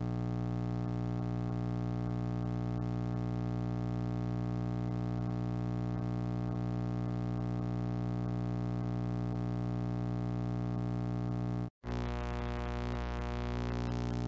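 A steady synthesizer drone: a dense, unchanging chord held at an even level. It cuts out for an instant about twelve seconds in, then resumes with a shifting higher texture layered over it.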